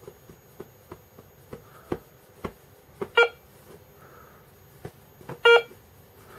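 Garrett ACE 250 metal detector sounding two short beeps, about three and five and a half seconds in, among a run of light taps and clicks. The detector is being tapped and checked for signals and false signals.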